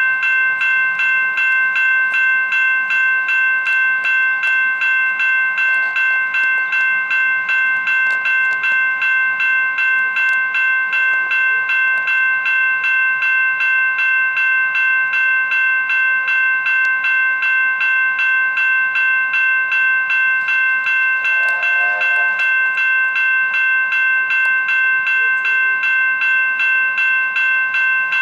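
Railway level-crossing warning bell ringing steadily at about two strikes a second. A brief faint whistle sounds about three quarters of the way through.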